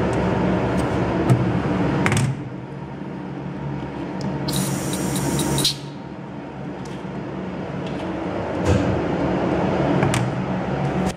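Stainless steel lid of a penetrant-inspection developer tank being closed and later lifted by its handle, with a few light knocks over a steady shop hum. About four and a half seconds in, a hiss lasts just over a second and stops abruptly.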